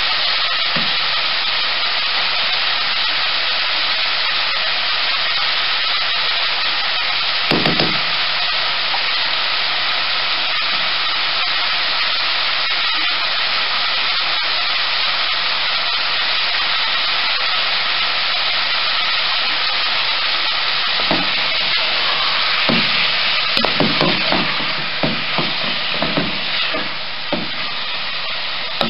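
Sliced onions sizzling in an aluminium pot, a steady hiss, with a single knock about a quarter of the way in. In the last quarter a wooden spoon stirs them, knocking against the pot again and again.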